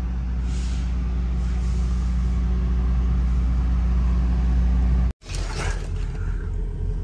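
Steady low drone of an idling diesel truck engine, slowly getting a little louder. About five seconds in it breaks off abruptly and gives way to a quieter, rougher engine rumble.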